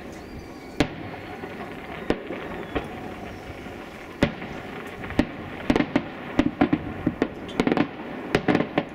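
Fireworks exploding: a few single bangs spaced a second or more apart, then a quick rapid string of bangs from about halfway through.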